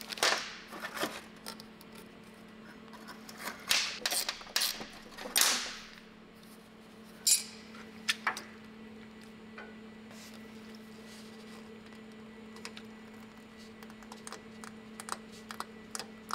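Scattered clicks, knocks and short scraping rustles from tools and metal parts being handled while fitting a diesel heater's exhaust pipe, the loudest scrapes around four to five seconds in and a sharp click a little after seven seconds, over a steady low hum.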